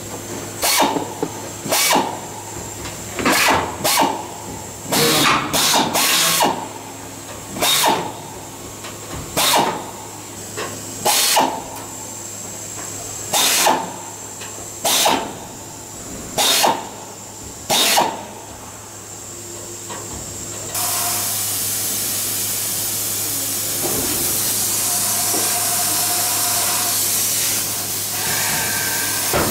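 Hand-held air drill clearance-drilling rivet holes through the fuselage floor skin in short bursts, about fourteen of them, one to two seconds apart. From about two-thirds of the way in, a steady hiss takes over.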